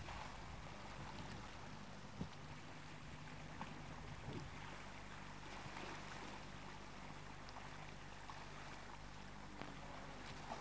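Faint, steady seashore ambience: the soft hiss of a calm sea with light air, over a low steady hum and a few faint ticks.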